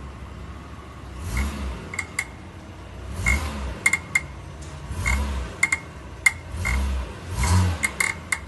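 Mitsubishi Pajero rear axle clunking under load in gear: about every two seconds a low thump with a swell of noise, then a few sharp metallic clinks. The clunk was cured by replacing the rear wheel hub bearings.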